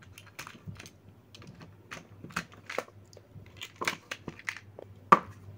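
AA batteries being pushed into the battery compartment of a battery-operated plastic toy crocodile. Irregular small clicks and knocks of battery against plastic, the loudest about four and five seconds in.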